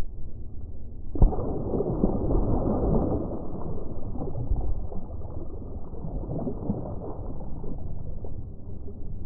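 A released Murray cod splashing at the surface beside the boat as it kicks away. The splash starts suddenly about a second in and slowly dies away as swirling water. Under it runs the steady low hum of a four-stroke outboard motor left idling.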